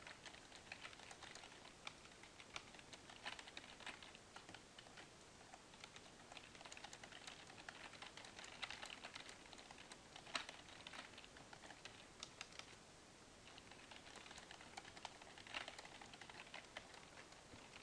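Computer keyboard typing, faint, in quick runs of keystrokes with a short pause about two-thirds of the way through.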